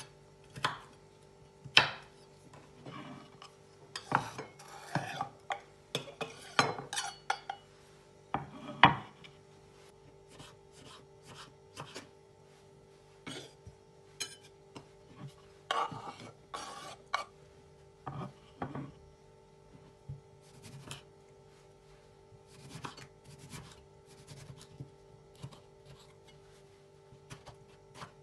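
Kitchen knife chopping on a wooden cutting board while green chili and tomatoes are cut, giving irregular sharp taps of the blade on the board. The taps come thick and loud for roughly the first third, then sparser and softer, over a faint steady hum.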